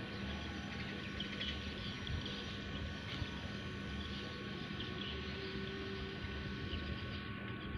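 Steady outdoor background noise: a low rumble with a faint constant hum and no distinct event.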